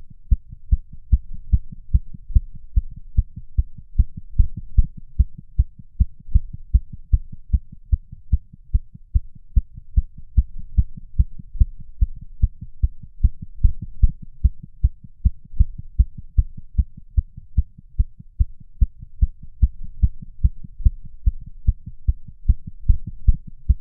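Artificially created rapid heartbeat sound effect: deep thumps in a steady, fast rhythm.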